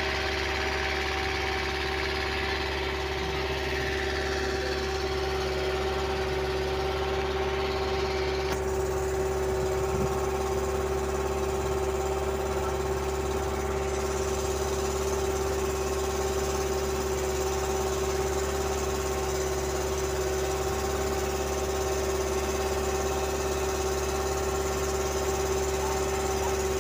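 Wooden boat's engine running steadily at a constant pace, a continuous mechanical hum. A hiss over it cuts off suddenly about eight seconds in.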